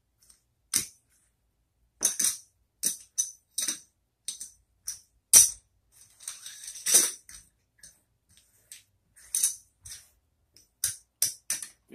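Poker chips clicking together as they are picked up, stacked and set down as bets: a string of sharp, irregular clacks, with a denser rattling run about six to seven seconds in.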